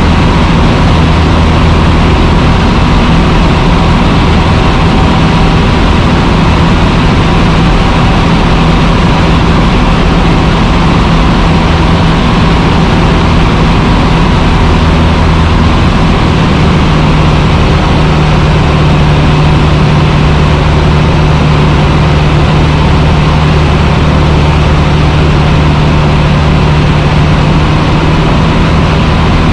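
Cessna 150's Continental O-200 four-cylinder engine and propeller droning steadily in flight, with no change in pitch or level.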